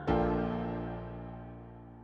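Background music: one sustained chord struck at the start and slowly fading away.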